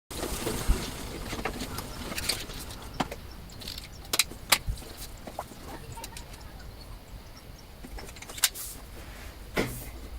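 Irregular small mechanical clicks and knocks from handling a Weihrauch HW97K SD underlever air rifle, with a few sharper ones standing out.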